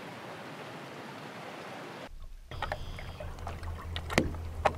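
A steady even hiss of outdoor ambience. About two seconds in it switches to water sounds around a rowed boat's oar: a low steady hum with scattered sharp clicks and drips.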